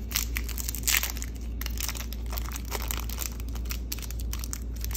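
Foil trading-card pack wrapper crinkling and tearing as it is pulled open by hand, in a run of irregular crackles with the sharpest about a second in, over a low steady hum.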